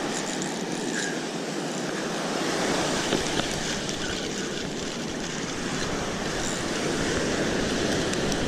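Ocean surf washing onto a beach: a steady rushing noise that swells gently, with some wind on the microphone.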